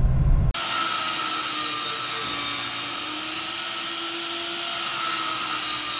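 A power saw cutting wood in one long, steady cut that starts abruptly about half a second in and runs on for several seconds.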